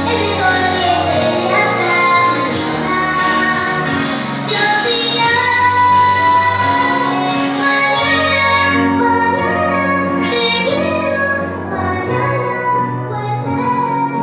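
Music with a woman singing a melody over held bass notes.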